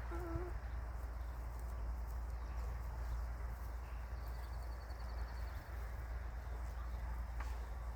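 Chickens in a coop: one short cluck right at the start, then the flock shuffling and pecking. A steady low rumble runs underneath.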